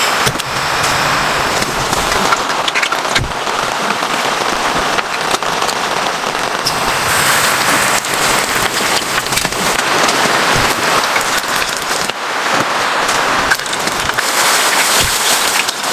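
Heavy rain falling steadily, with many close drops ticking sharply on a nearby surface.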